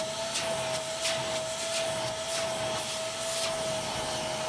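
Vacuum cleaner running with a steady high whine, sucking cleaning solution back out of a car's fabric upholstery. Short swishes of added hiss come about every half second as the nozzle is worked over the fabric.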